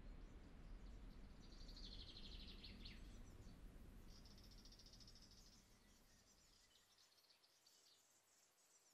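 Faint outdoor nature ambience: high, rapid chirping trills come and go over a low rumble that fades away about two thirds of the way through.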